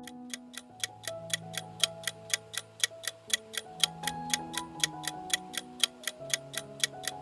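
Countdown timer sound effect: a clock ticking evenly, about five ticks a second, over a soft tune of long held notes.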